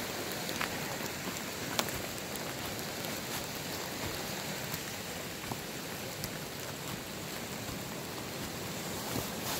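Steady rushing hiss of water, with a few faint scattered ticks.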